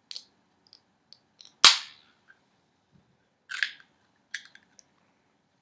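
Sharp clicks from a red drink can being handled, with one loud crack about a second and a half in and a few lighter clicks after it.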